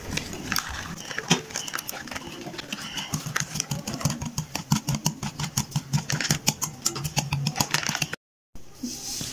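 Wire whisk beating mashed banana and oil in a glass bowl: a fast, steady run of clicks and taps as the whisk strikes the glass. The sound cuts out briefly near the end.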